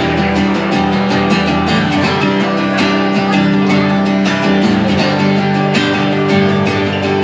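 Live acoustic guitar, strummed and picked by a solo performer in a steady rhythm.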